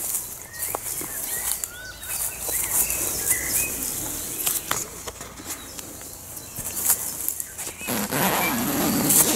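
Rustling and handling noise with a few bird chirps, then, near the end, a loud rasp as the zip on the tent's nylon outer door is pulled open.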